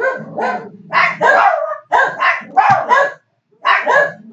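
A dog barking over and over, in quick runs of two or three barks with short pauses between.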